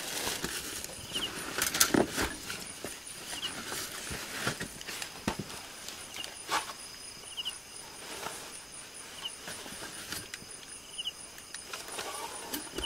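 Camping gear being unloaded from a car's boot: scattered knocks, clicks and clatter. Behind it, crickets chirp steadily, with one short chirp repeating about every two seconds.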